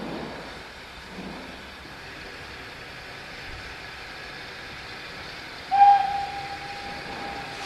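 Steam locomotive whistle sounded once, near the end: a single steady note that starts sharply and is held for about two seconds, softening as it goes. Under it is the steady hiss of escaping steam.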